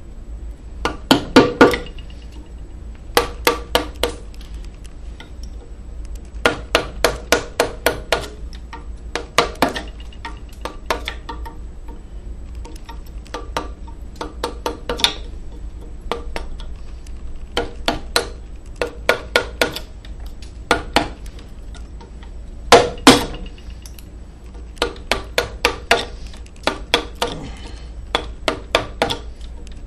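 A carving mallet striking a chisel into walnut in bursts of several quick taps with short pauses between them. A pair of harder blows comes about two-thirds of the way through.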